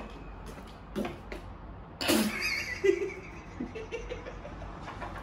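A man's laughter, breaking out suddenly about two seconds in.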